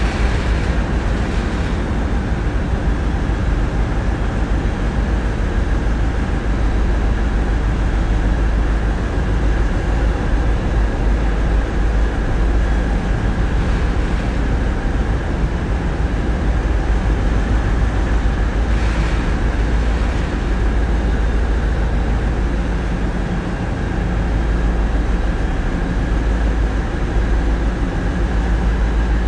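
Tugboat's diesel engines running steadily, heard inside the wheelhouse: a deep, even rumble with a faint steady whine above it.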